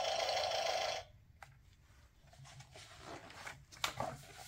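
Sound book's airplane sound effect, a steady buzzing propeller-engine drone from a small speaker, which cuts off about a second in. After that comes a click, then the soft rustle of a page being turned and pressed flat.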